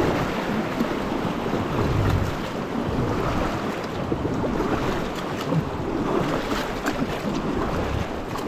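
River water rushing and splashing around an inflatable raft as the crew paddles forward, with wind buffeting the microphone.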